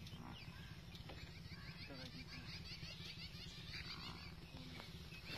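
Faint birdsong: short high chirps, with a quick run of repeated chirps near the middle, over a steady low rumble.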